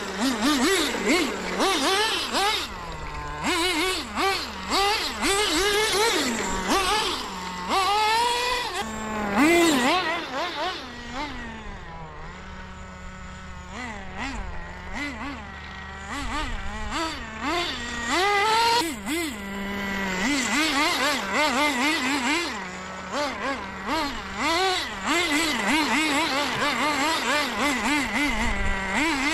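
Small nitro engine of an HPI WR8 Nitro rally RC car revving, its high-pitched buzz swooping up and down in quick throttle blips as the car is driven, settling to a lower, quieter steady note for a few seconds midway.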